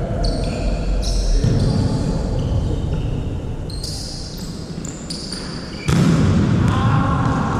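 Indoor volleyball play: sneakers squeaking on the court amid ball impacts and general crowd noise, which grows suddenly louder about six seconds in.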